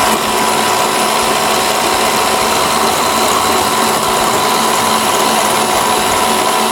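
Electric stand mixer running steadily at a constant speed, its beater turning in a steel bowl to cream butter with egg for biscuit dough.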